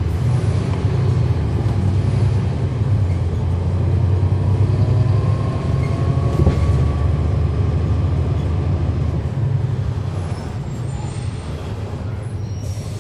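Cummins ISL9 inline-six diesel engine of a NABI 40-SFW transit bus heard from the rear seats, pulling the bus along as a steady low drone. It grows louder over the first few seconds and eases off about nine seconds in.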